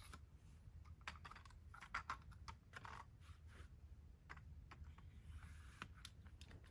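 Faint, irregular clicks and taps over a low steady hum.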